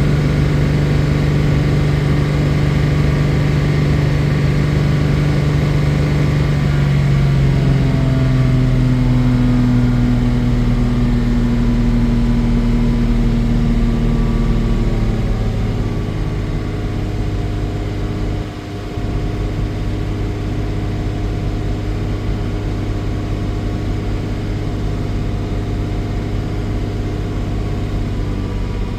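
1987 Jaguar XJ-S 3.6's straight-six engine running at steady, raised revs, then dropping in two steps to lower revs, with a brief falter about two-thirds of the way through. The engine has a misfire.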